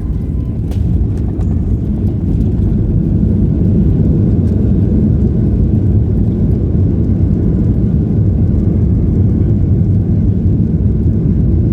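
Boeing 737-800 engine and airframe rumble heard from inside the cabin: a loud, deep rumble that builds over the first few seconds and then holds steady, with a few light knocks near the start.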